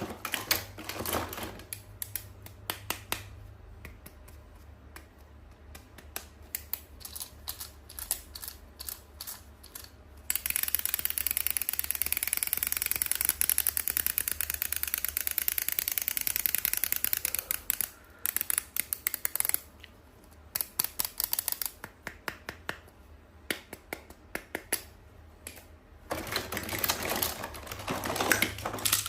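Close-up handling of toy packaging: scattered sharp clicks and taps, with a dense run of crackling lasting about eight seconds in the middle.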